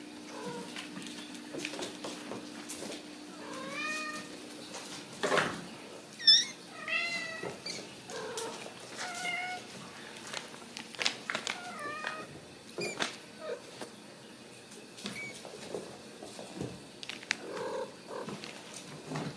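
Ragdoll kittens mewing again and again, short high thin mews that rise and fall in pitch, with scattered sharp clicks and scuffles as they scramble in and around a foil duct tunnel inside a wire pen. A faint steady hum fades out about five seconds in.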